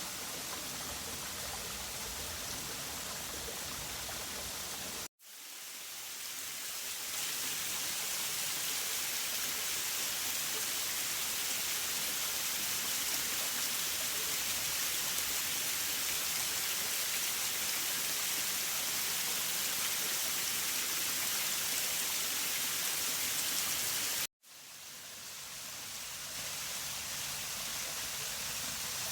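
Steady rushing hiss of falling water from a small waterfall. It cuts out sharply about five seconds in and again near the end, each time fading back in over a second or two. The long middle stretch is louder and brighter.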